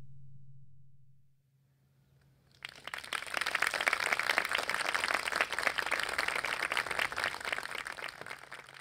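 The last note of a cello and piano piece fades away, then a small audience claps for several seconds, thinning out near the end.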